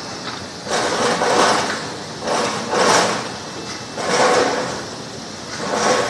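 Water churning and splashing in the air-bubble washing tank of a vegetable washing machine, swelling and fading about every one and a half seconds.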